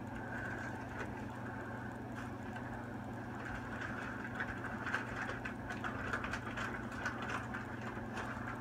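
A steady low mechanical hum with a higher whine above it, with a scatter of short faint clicks in the second half.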